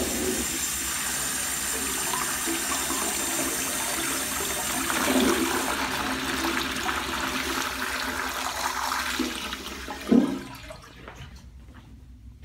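Commercial tankless toilet flushing: a steady rush of water for about ten seconds, a short louder burst near the end, then it tapers off to a quieter trickle.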